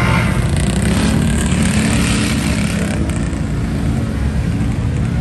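Off-road vehicle engine running at high revs under load as it churns through a deep mud pit.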